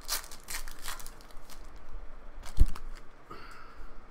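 Foil wrapper of a trading-card pack being torn open and crinkled, a few crackly rips in the first half-second, then cards being handled. About two and a half seconds in comes a single loud thump, the loudest sound here.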